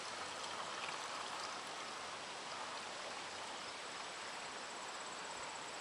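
Faint, steady hiss with no distinct knocks or events, and a faint high thin tone joining in about two-thirds of the way through.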